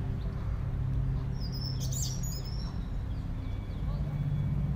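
A bird gives a short burst of quick, high chirps about two seconds in, with a few fainter chirps later, over a steady low drone and outdoor wind rumble.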